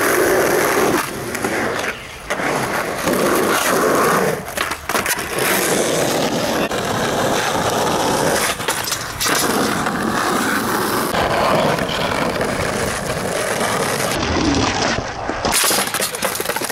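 Skateboard wheels rolling over rough asphalt, with several sharp clacks of the board popping and landing during flip-trick attempts.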